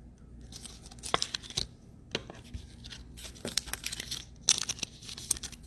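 Plastic trading-card pack wrappers being crinkled and torn by hand, in irregular crackling bursts, with a busier spell near the end.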